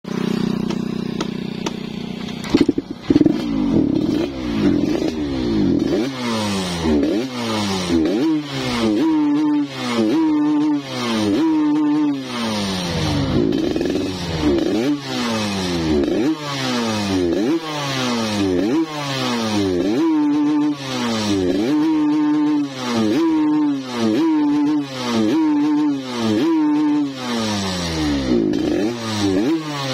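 Yamaha RX-King's two-stroke single-cylinder engine idling for a couple of seconds, then revved again and again in quick throttle blips, about one a second, the pitch shooting up and dropping back each time.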